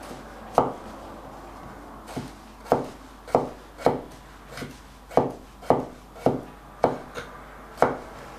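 Kitchen knife chopping red bell pepper on a wooden cutting board: about a dozen sharp knocks of the blade on the board at an uneven pace, roughly one to two a second.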